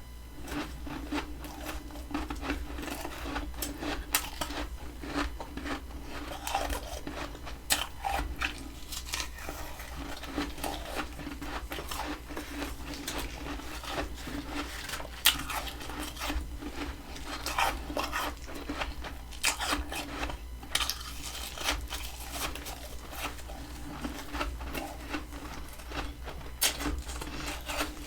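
Close-up crunching and chewing of fluffy humidifier freezer frost, with many irregular crisp crackles.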